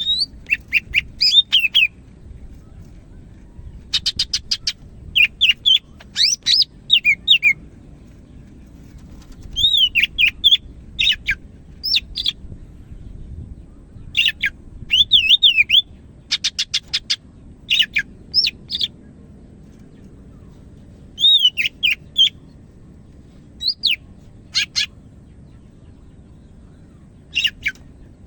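A cucak hijau (green leafbird) singing in full voice. It gives short bursts of loud, sweet whistles that slide up and down, mixed with rapid trills, and pauses for a second or two between bursts.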